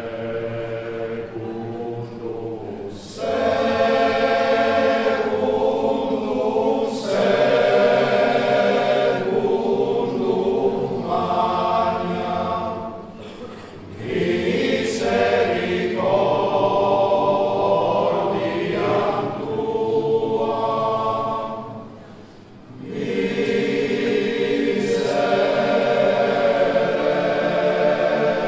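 A choir singing slow, sustained phrases separated by short pauses; the first phrase is quieter than the ones that follow.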